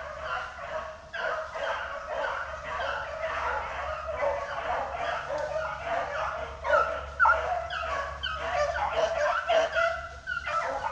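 A pack of beagles baying on a rabbit's track: many short, overlapping barks and bawls with no break, the sound of the dogs in full cry running a rabbit.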